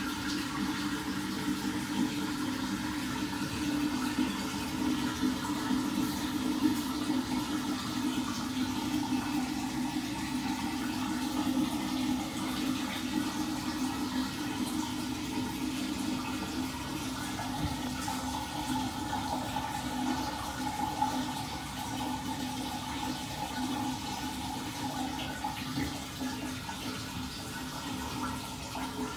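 Toilet flush: water swirling in a whirlpool down a freely draining pipe, a steady rush with a faint hum in it.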